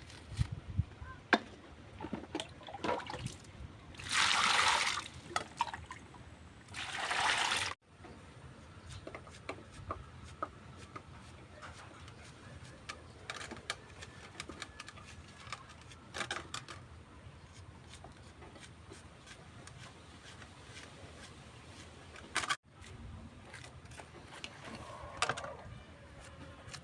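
Water pouring or running in two short spells, about four and seven seconds in, amid small clicks and knocks of kitchen work.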